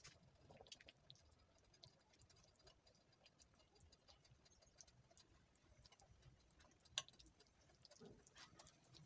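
Faint, quiet clicks and soft knocks of a wooden spoon stirring chicken pieces in stew in a stainless steel pot, with one sharper tap about seven seconds in.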